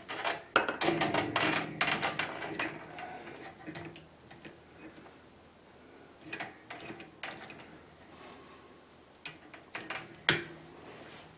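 Metal clicking and rattling as a locking C-clamp and a bandsaw blade are handled on a steel fixture. The clicks come thick at first, then sparse, with one sharp snap near the end as the locking clamp is closed.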